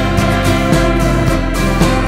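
Background music with instruments playing steady sustained notes and a regular beat.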